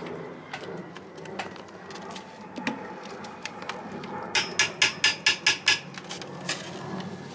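Metal ladle working in a large stainless steel pot of thick rice pudding, with scattered scrapes and knocks. A little past halfway comes a quick run of about nine sharp, ringing metallic taps, the ladle knocking against the pot.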